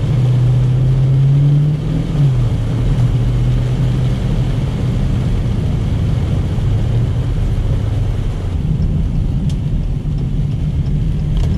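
The 2020 Dodge Challenger Scat Pack 1320's 6.4-litre HEMI V8, heard from inside the cabin while driving. The engine note rises, drops about two seconds in, then runs steady, over a constant hiss of heavy rain and wet road noise.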